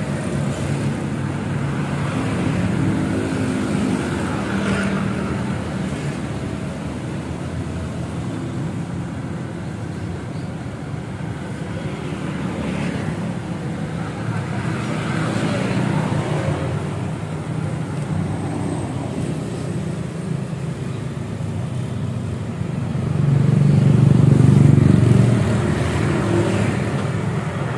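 Road traffic running steadily past, with engine rumble from passing vehicles. One vehicle passes louder near the end.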